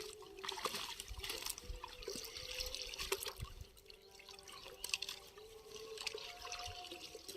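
Pond water splashing and dripping in irregular bursts, with a steady, slightly wavering hum underneath.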